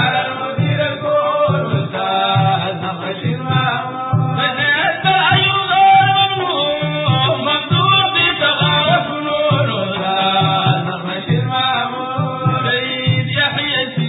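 Sudanese Sufi madeeh: men's voices chanting a praise song together over a steady low drum beat, about two beats a second.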